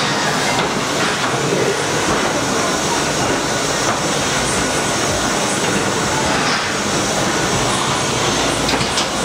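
Ghost-train car running along its rail track through the dark ride, a steady loud noise of wheels on the track.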